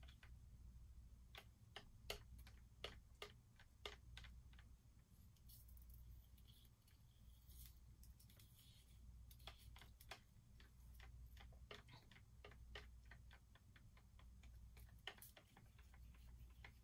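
Faint, irregular clicking of a stir stick knocking against the sides of a cup as acrylic paint thinned with water is stirred, over a low steady hum.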